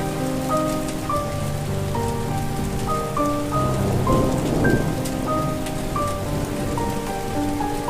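Steady rain falling, with a slow melody of sustained notes played over it. A rumble of thunder swells about halfway through.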